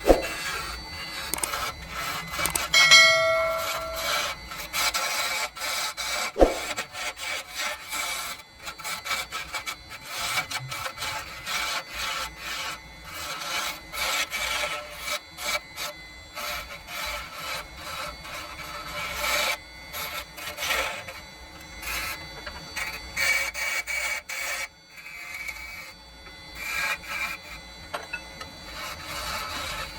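Hand work on a wooden piece: repeated irregular rasping and scraping strokes throughout. A short metallic ring sounds about three seconds in, and a sharp knock about six and a half seconds in.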